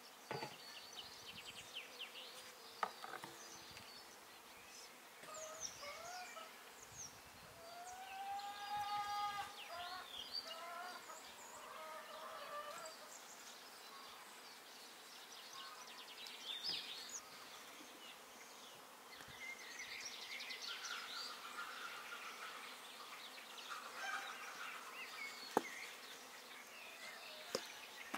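Birds chirping and calling in short, varied phrases over faint outdoor ambience, with a few sharp taps now and then.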